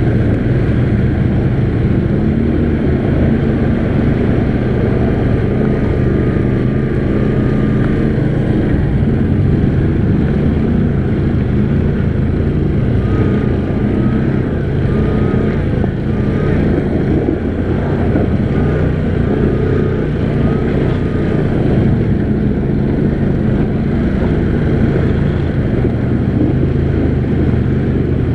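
Can-Am Outlander XMR 570 ATV's V-twin engine running steadily under throttle while riding.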